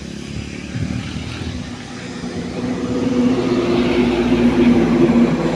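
A motor vehicle driving past, its engine hum growing louder from about two seconds in and loudest shortly before the end.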